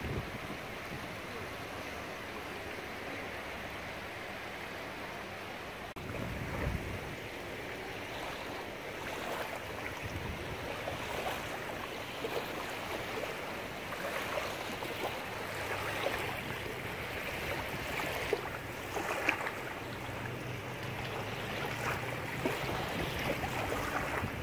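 Small waves lapping and washing onto a sandy shore, a steady hiss of water with brief splashes that grow more frequent in the second half. A faint low hum sits underneath near the end.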